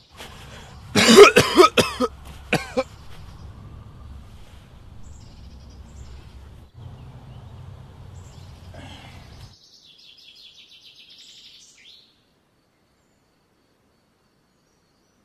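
A man coughing in a few harsh, loud fits about a second in, then a faint low hum and a brief run of high bird chirps before the sound cuts off to silence.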